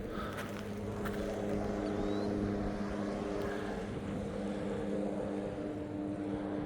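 Boat engine running at a steady speed, a constant low drone with a steady hum of several pitches over a haze of water and wind noise.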